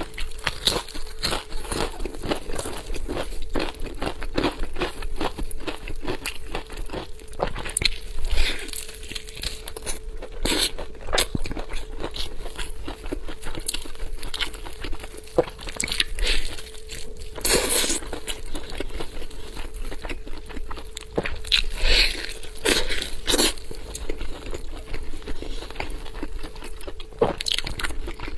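Close-miked eating of a big braised chicken leg: biting, tearing and chewing with a steady run of irregular crackles and clicks, and a few louder bites along the way.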